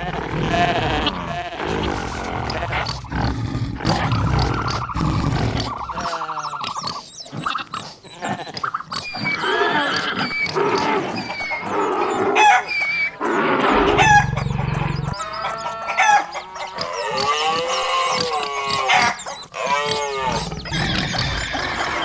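A string of many different cartoon animal calls and cries, one after another and overlapping, used as stampede sound effects, with a low rumble under them in the first few seconds.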